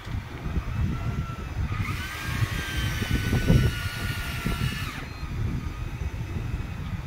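Big-game fishing reel whirring with a high, wavering whine for about three seconds and stopping abruptly, as line is cranked in between pumps of the rod. A low rumble runs underneath.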